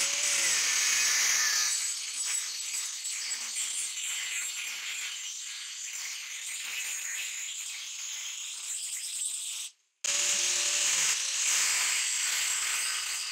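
INGCO angle grinder with a thin cut-off disc cutting through leaf-spring steel, a steady high grinding hiss. It breaks off suddenly for a moment about ten seconds in, then starts again.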